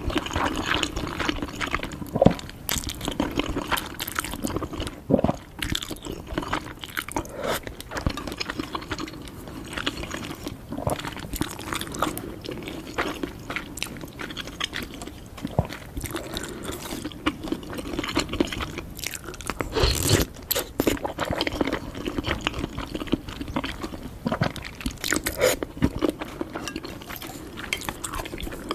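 A person chewing and biting food close to the microphone while eating spicy 'turkey' noodles and soft-boiled egg, with a steady run of wet mouth sounds and small crunchy clicks. A stronger, fuller bite comes near the end.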